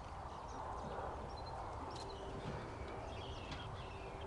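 Thin, high cheeping of nestling birds hidden in a tractor, short chirps scattered through, with dogs scuffling as they climb about on the tractor.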